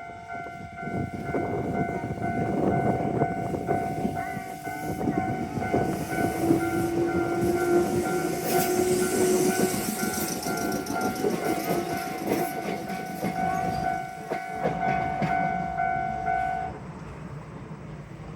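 A Japanese railroad crossing bell rings steadily while a train passes over the crossing, its wheels clattering on the rails, and a single tone rises slightly partway through. The train fades after about fourteen seconds, and the bell stops a couple of seconds before the end.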